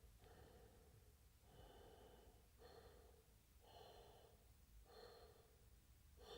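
Faint, slow breathing, in and out, about one breath a second.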